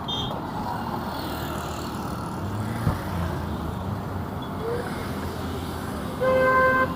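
Street traffic noise with a passing vehicle's low rumble, and a single steady car horn honk lasting under a second near the end, the loudest sound.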